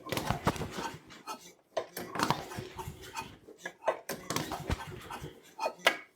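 Recoil starter rope pulled several times, turning over a Tecumseh small engine that has a compression gauge in the spark plug hole, so it cranks without firing: a wet compression test, with oil in the cylinder. Each pull comes as a rasping, clicky burst, with short gaps between.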